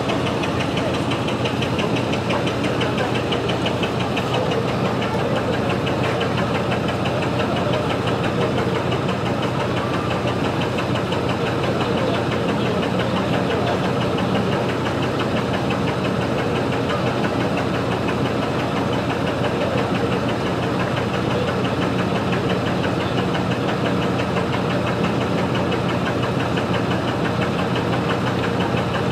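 Truck engine idling steadily nearby, a fast, even clatter over a low hum that does not change.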